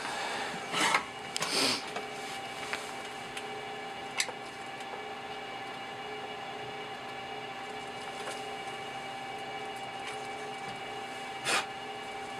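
Hands handling and scraping at the parts of a disassembled speaker: a few short rubs and scrapes in the first two seconds, a sharp click about four seconds in, and another brief scrape near the end, over a steady hum.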